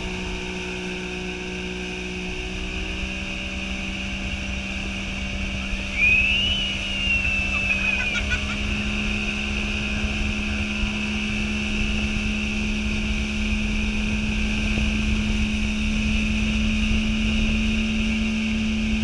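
Boat's outboard motor running steadily at speed while towing a banana boat, over the rush of water and wind; the engine note rises a little about eight seconds in. About six seconds in, a brief high-pitched shout rises and falls over the engine.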